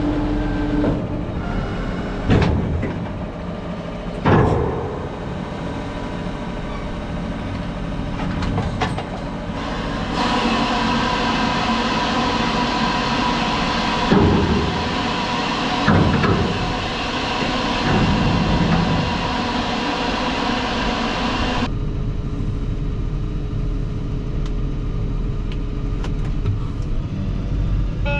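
Fendt 716 Vario tractor running steadily while pulling a slurry tanker during spreading, with a few knocks and thumps. The sound changes abruptly about ten seconds in, with more hiss, and again around twenty-two seconds in.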